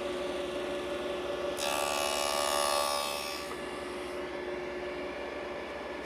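Table saw with a dado blade running, cutting a rabbet into the back edge of an MDF door panel: the cut comes in louder and brighter about a second and a half in and lasts about two seconds, then the blade spins free again.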